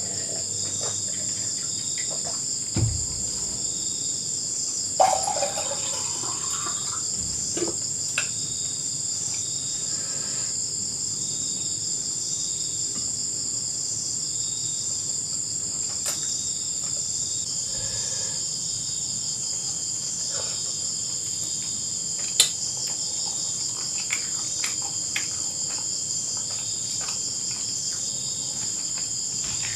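Dense chorus of night insects in the forest: a steady high-pitched trilling, with a softer pulsing trill beneath it. A few sharp clicks break in now and then.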